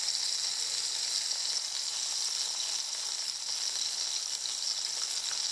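Floured mackerel fillets frying in oil in a pan, a steady sizzle.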